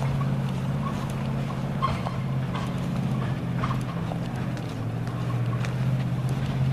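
Engine running steadily with faint light clatter, its pitch shifting slightly partway through.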